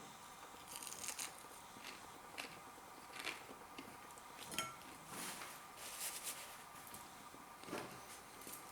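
Faint crunching and chewing of a crisp battered king prawn: scattered soft crackles about a second apart.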